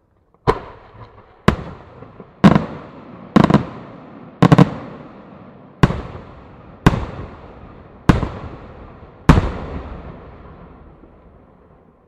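Aerial firework shells bursting in the night sky: nine sharp bangs about one a second, each trailing off in a rolling echo, the last fading out near the end.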